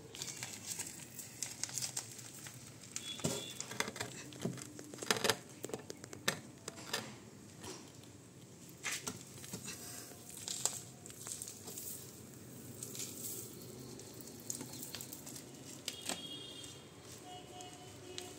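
Irregular crinkling and light clicks from handling thin disposable plastic cups and dry potting mix, with the densest run of clicks a few seconds in.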